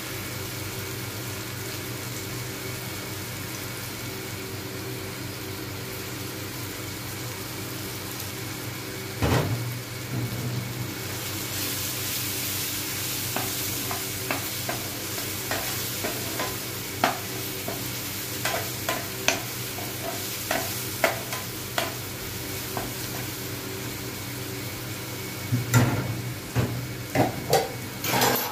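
Onion and tomato frying in oil in a nonstick frying pan, sizzling over a steady low hum. From about a third of the way in, a spatula stirs them with many quick clicks and scrapes against the pan, with a couple of heavier knocks on the pan.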